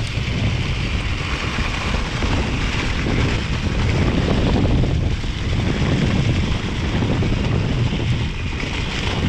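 Wind buffeting the action-camera microphone as a mountain bike rolls downhill, a steady loud rumble with the tyres running over wet leaves.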